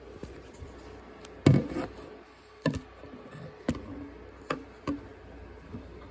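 Six or so separate knocks and taps, the loudest about one and a half seconds in: handling bumps as the recording device is set in place.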